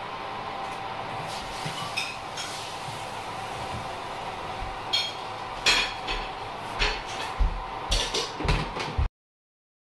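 Metal baking trays knocking and clinking against oven wire racks as they are slid into an oven, with a few scattered knocks at first and then a quicker run of clatters, over a steady hum. The sound cuts off suddenly near the end.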